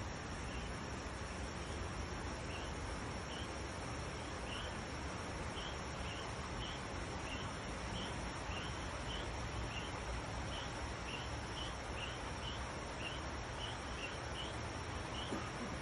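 An insect, most likely a cricket, chirping in short, slightly rising chirps about twice a second, over a steady background hiss.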